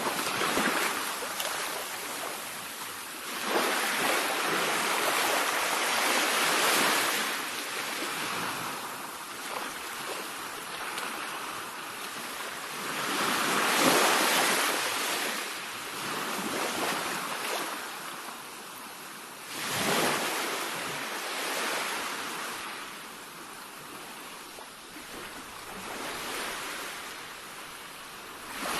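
Sea waves breaking on a shore: a steady rush of surf with several waves crashing in at uneven intervals a few seconds apart, the loudest about halfway through.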